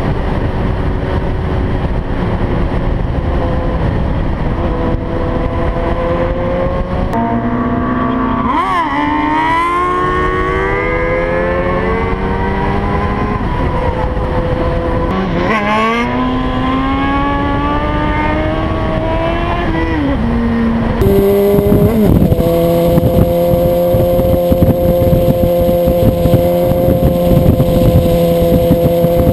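Sport motorcycle engine under way with wind rush on the microphone; the revs climb twice as it accelerates, then fall back. From about 21 seconds in it is louder and holds a steady engine note.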